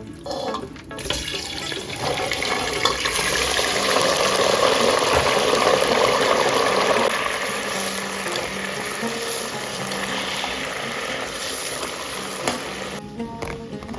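Food sizzling in a pot of hot oil being deep fried: an even, loud hiss that builds over the first few seconds, eases slightly, then stops about a second before the end.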